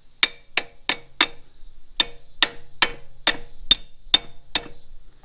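A wrench tapping the pad retaining pin into a BMW F850GS rear brake caliper: about eleven sharp metallic taps, four quick ones, a short pause, then seven more at an even pace of about two a second.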